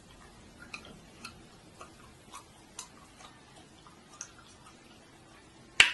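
Faint, regular ticking, about two ticks a second, then one sharp, much louder click near the end.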